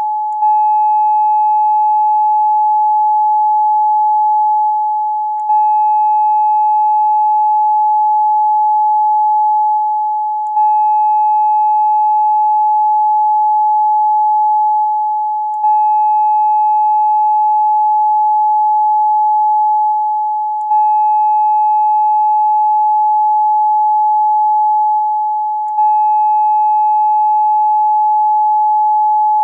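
Steady 852 Hz meditation tone, a single pure pitch with faint higher overtones. It loops about every five seconds, sagging slightly at the end of each loop and restarting with a faint click.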